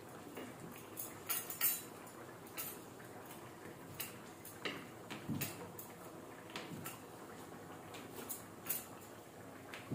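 Wooden rolling pin rolling out puri dough on a marble counter: irregular light clicks and knocks, with one duller knock about halfway through.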